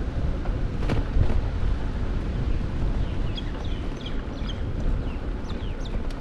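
Wind rumbling on the microphone of a camera on a moving bicycle, with one sharp click about a second in. From about three seconds in, a bird gives a string of short, high, falling chirps.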